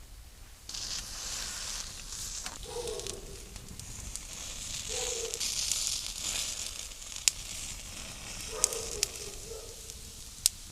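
Food sizzling in a pan over a campfire, a steady hiss with a few sharp pops in the second half.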